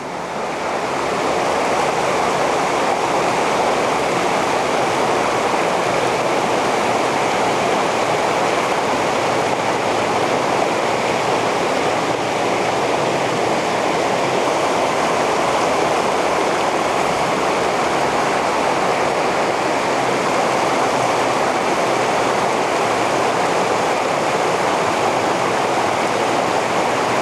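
River water rushing steadily over stones in a fast, shallow current. It swells up within the first second, then holds an even level.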